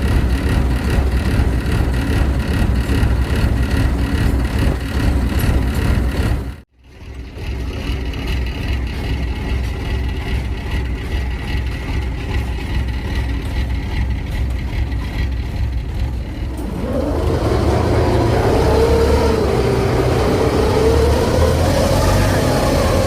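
Engine of rice-harvesting farm machinery running steadily, cut off abruptly about a third of the way in and then running again. In the last several seconds a wavering, rising engine note comes in and grows louder as an engine revs up.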